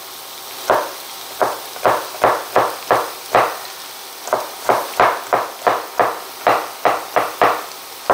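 Chef's knife chopping an orange bell pepper on a plastic cutting board: sharp knocks of the blade on the board, two to four a second, with a short pause about halfway.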